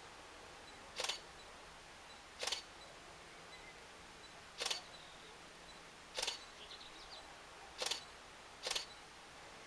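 Six sharp clicks at irregular intervals, each a quick double click, over a faint steady hiss.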